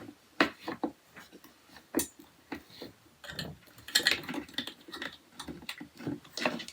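Parts of a flat-pack storage rack being handled and fitted: irregular light clicks, clinks and knocks, with a quick cluster about four seconds in.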